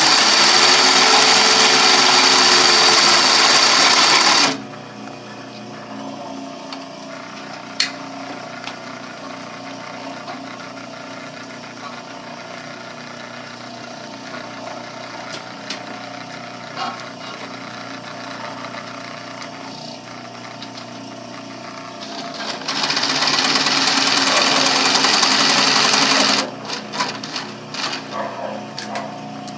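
MITT 4000 triple-feed sewing machine stitching at a steady speed for about four seconds, stopping, then running again for about four seconds near the end. In between, a quieter steady hum with occasional small clicks, and a patter of clicks after the second run.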